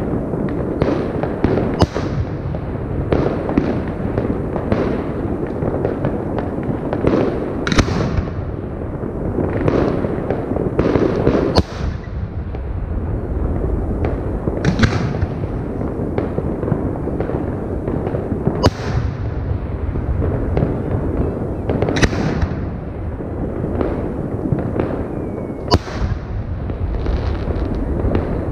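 Fireworks display: aerial shells bursting with sharp bangs every few seconds over a continuous low din of other launches and bursts.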